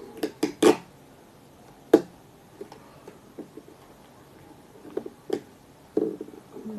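A few sharp clicks and taps: a quick cluster in the first second, a single loud one about two seconds in, two more around five seconds in, then a short muffled sound near six seconds.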